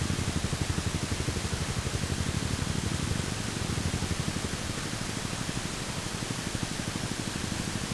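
Honda CBR300R single-cylinder engine running with a rapid, even pulse, under a steady rushing hiss.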